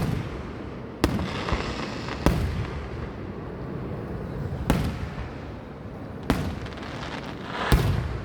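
Aerial firework shells bursting overhead: about five sharp booms a second or two apart, each trailing off in an echoing rumble, the last one the loudest.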